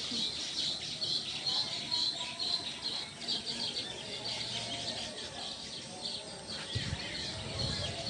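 A colony of baya weavers chirping and chattering at their nests, a dense, continuous run of quick high chirps. A brief low rumble comes near the end.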